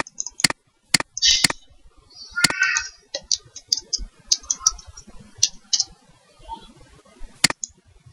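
Computer mouse clicks and keyboard keystrokes: sharp single clicks scattered through, with a quicker run of small key taps in the middle.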